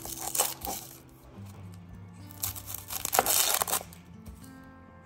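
Chef's knife cutting through a whole onion on a plastic cutting board: short crunching cuts and crinkling of the papery skin in the first second, then a longer crunching cut from about two and a half seconds in. Background music plays underneath.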